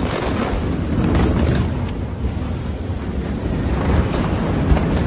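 Loud, steady rumbling noise buffeting the microphone, like strong wind, following a sharp bang just before.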